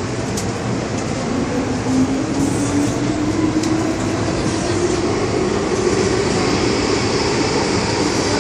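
MTR M-Train metro car pulling out and accelerating, heard from inside the car. A motor whine rises steadily in pitch over several seconds above the running rumble, which grows a little louder.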